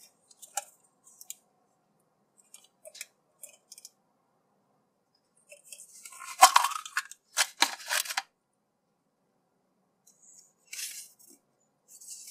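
Hard plastic gashapon capsule clicking as it is handled, then twisted open with a loud run of plastic cracks and clicks about six to eight seconds in. Paper rustling near the end as the folded leaflet is opened.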